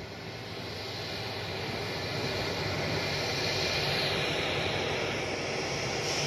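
Airbus A330 freighter's twin jet engines running as it rolls along the runway: a steady rushing noise that grows louder, with a high whine that drops slightly in pitch about four seconds in.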